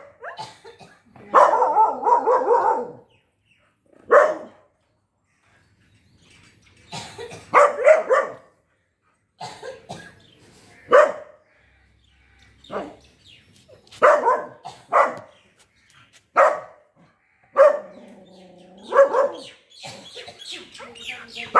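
A dog barking at the gate in alert, guard-dog fashion: short, sharp single barks every second or two, with a couple of longer drawn-out barks, one about a second and a half in and one near the end.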